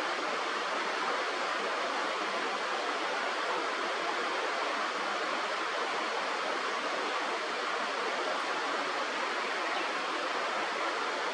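Steady rushing of a river or stream, an even, unbroken noise.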